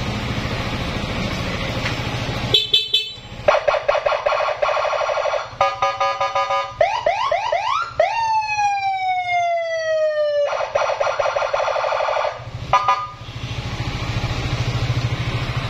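Custom police-escort electronic siren on a Yamaha XMAX scooter being tested, cycling through its tones: a fast pulsing warble, a few quick rising whoops, one long falling wail, then the pulsing warble again, for about ten seconds. The scooter's engine idles steadily before the siren starts and after it stops.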